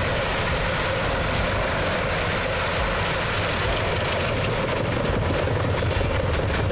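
Wood chipper running steadily, a continuous mechanical drone with a low hum and faint scattered ticks.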